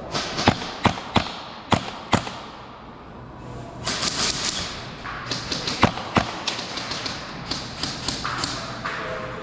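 Sharp cracks of airsoft gunfire and BB hits in an indoor arena: several single cracks in the first couple of seconds, then a busier stretch of cracks and taps over a hiss from about four seconds in.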